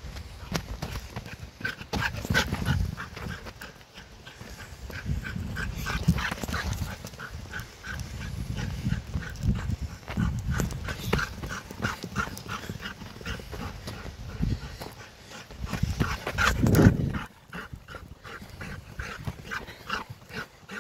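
A running dog panting hard, in quick regular breaths. Low rumbling noise comes and goes underneath, with one louder burst about three quarters of the way through.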